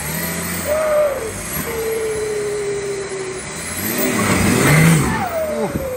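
Nissan Patrol's turbocharged engine revving in surges under load as it crawls over a rock obstacle, loudest a little before the end. A whine slides slowly down in pitch across the whole stretch.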